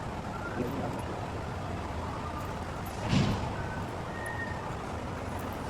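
Steady low background rumble, with one short knock about three seconds in.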